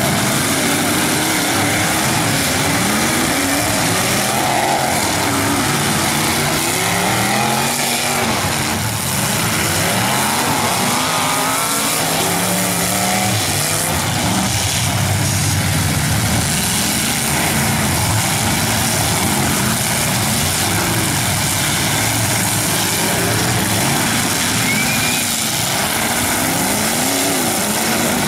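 Several demolition derby car engines revving up and down at once, loud and continuous, their pitches rising and falling over and over as the cars push and ram each other.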